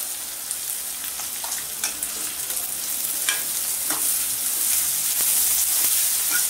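Cabbage and potatoes sizzling in a metal kadhai while a steel ladle stirs them, the ladle clinking and scraping against the pan several times. The sizzle grows louder about halfway through.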